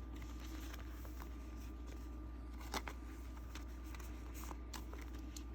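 Faint handling of baseball cards: soft rustles and small clicks, with one sharper click about three seconds in, over a steady low hum.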